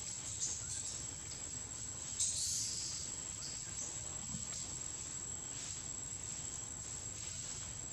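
Insects shrilling with a steady high-pitched drone, with a short louder burst of buzzing about two seconds in.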